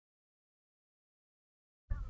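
Dead silence, with the sound track blank, until a faint sound begins right at the very end.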